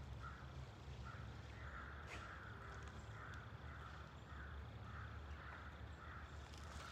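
A bird calling faintly and repeatedly: a string of about ten short calls, roughly two a second.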